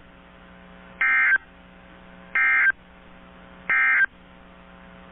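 Three short, identical bursts of the EAS/SAME digital data signal, the warbling two-tone data code of NOAA Weather Radio, about 1.3 s apart. This is the end-of-message code that marks the close of the severe thunderstorm warning broadcast. A steady low hum runs under them.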